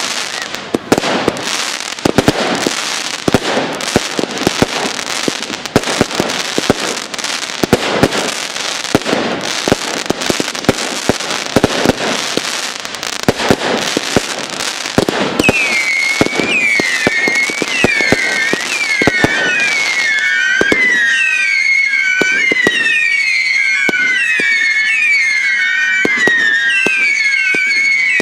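Fireworks display: a dense barrage of bangs over crackling. From about halfway, many whistling fireworks sound at once, their pitches wavering up and down over continued pops.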